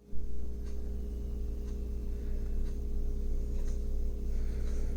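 A steady low electrical hum with a few faint, light clicks.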